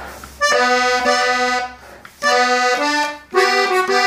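Hohner Compadre three-row diatonic button accordion playing an ornamented melodic phrase, begun on the push of the bellows. It comes in three short bursts, with brief breaks about two and three seconds in.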